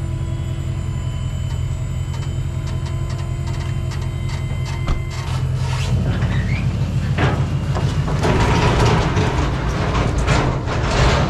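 Truck engine running while a dump trailer's hydraulic pump whines and raises the bed, the whine stopping about five seconds in. From about six seconds in, a load of oak rounds and logs slides and tumbles out of the bed with clattering knocks.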